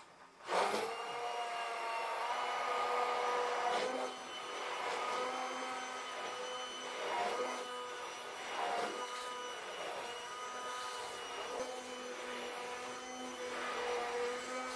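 Geepas hand-held immersion blender switching on about half a second in, then running steadily with a motor whine while its blade churns a liquid lotion mixture in a steel pot.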